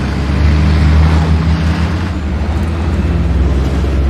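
Heavy armoured military patrol vehicles driving in convoy: a steady, deep engine drone with the rush of tyres on a dusty dirt track.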